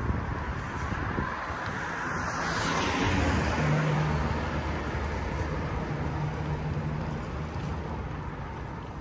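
A motor vehicle passing close by on a street. Its noise swells to a peak about three to four seconds in, then slowly fades over a steady low engine hum.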